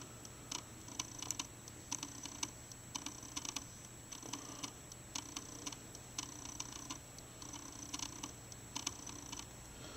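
Faint, irregular light clicks, several a second, over a low steady hum.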